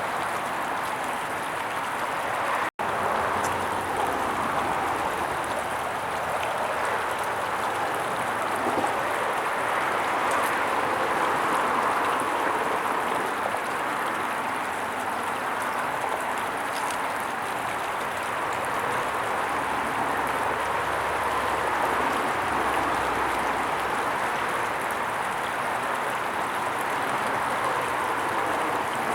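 Stream water running, a steady, continuous rushing; the sound cuts out for an instant just under three seconds in.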